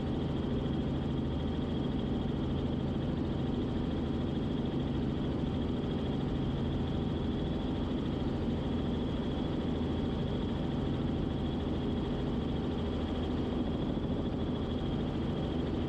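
Steady drone of a Robinson R44 Clipper II helicopter in cruise: its six-cylinder Lycoming piston engine and rotors running evenly, with a few steady tones over a constant rumble.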